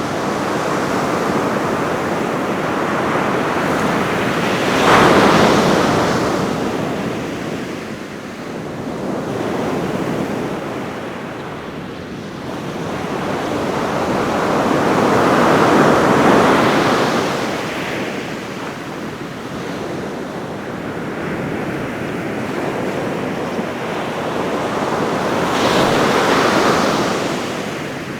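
Ocean surf on a beach: waves breaking and washing in a continuous roar, swelling three times, about every ten seconds, the first crash coming suddenly, with some wind.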